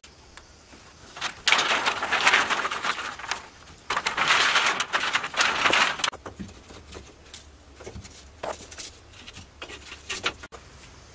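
Bamboo slats clattering and scraping against each other and a wooden frame as they are laid down, in two long rattling bouts, followed by scattered light knocks.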